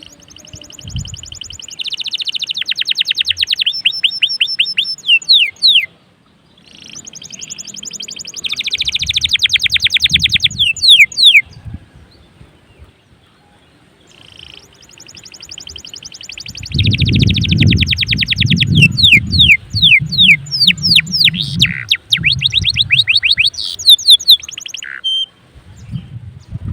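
Domestic canary singing hard in three long phrases, each built of fast rattling trills and quick downward-sweeping notes, with short pauses between them. A low rumble runs under the last phrase.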